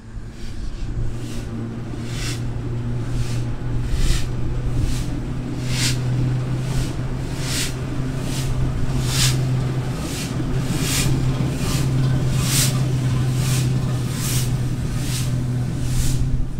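Locomotive at a heritage steam railway working slowly. A steady low hum runs under evenly spaced bursts of hiss, a little more than one a second, like slow exhaust beats.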